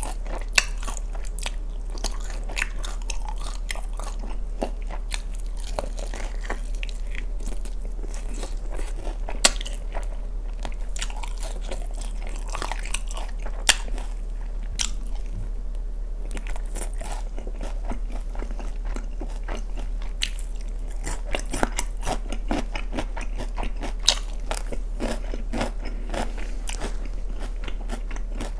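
Close-miked biting and chewing of sauced fried chicken: a dense run of crisp crackles and wet clicks, with a few sharper pops about half a second, ten, fourteen and twenty-four seconds in. A steady low hum sits underneath.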